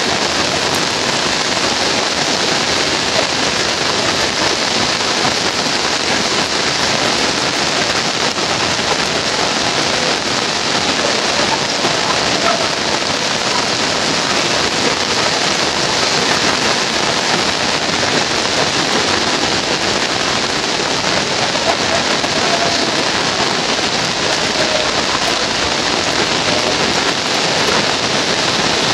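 Heavy rain falling steadily on foliage and flooded ground: a dense, even hiss that does not let up.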